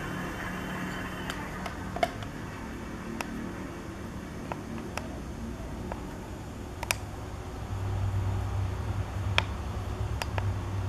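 Scattered sharp clicks from the buttons of an e-bike LCD display being pressed, over a low steady hum that grows louder about eight seconds in.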